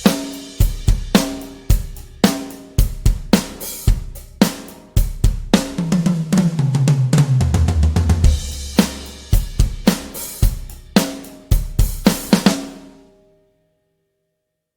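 Toontrack EZdrummer 3 sampled drum kit playing a groove of kick, snare, hi-hat and cymbals, with a fill down the toms falling in pitch in the middle. It ends on a final crash that rings out and fades about 13 seconds in.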